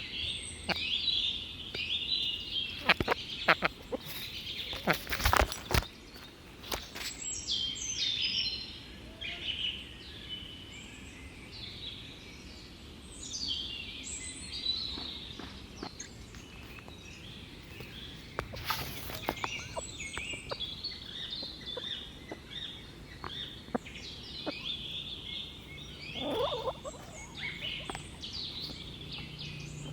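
Small birds chirping and twittering almost without pause, with a few sharp knocks mixed in and a lower call about four seconds before the end.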